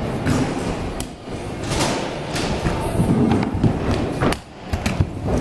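Stunt scooter riding on skatepark ramps: wheels rolling with a low rumble, and a series of sharp knocks and thumps as the deck and wheels hit the ramp.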